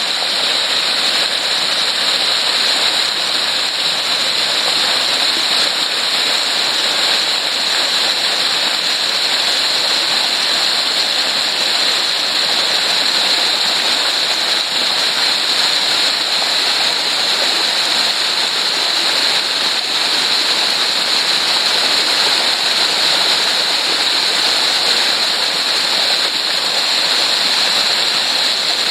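Steady rush of a mountain waterfall and creek, water pouring over rock in a continuous, unbroken roar.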